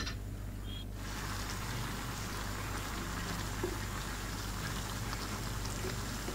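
Curry of catfish and cauliflower simmering in a frying pan: a steady bubbling hiss that sets in about a second in.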